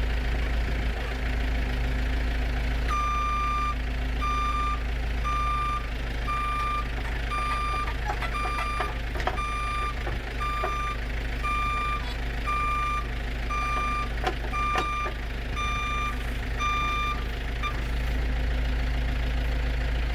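A vehicle's reversing beeper sounding about once a second, each beep about half a second long, over a steady low hum, with a few knocks partway through.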